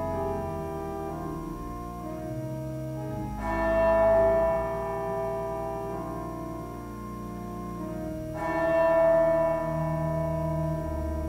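Organ music playing slow, held chords. A new, louder chord comes in about three and a half seconds in, and another about eight and a half seconds in.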